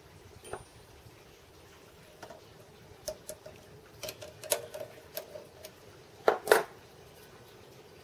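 Light metal clicks and clinks from handling a bronze bush and an aluminium casting at a lathe chuck, growing busier partway through, with two louder knocks in quick succession near the end.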